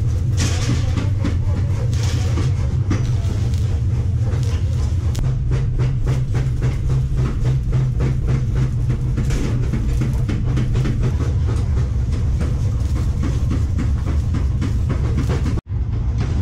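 Steady low machine drone in a metal workshop, with rapid irregular crackling and ticking over it; the sound breaks off for an instant near the end.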